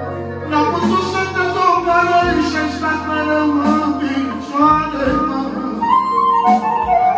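Live manele music: an electronic keyboard playing a melody over a bass line, with a man singing into a handheld microphone.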